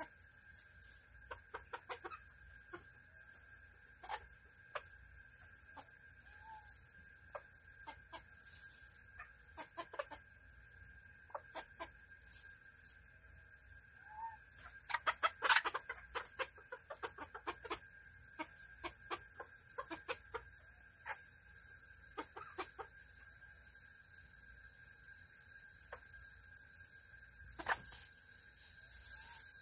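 Serama bantam chickens pecking and scratching at food and gravel: scattered sharp tapping clicks, with a louder quick flurry about fifteen seconds in. A few soft clucks come in between.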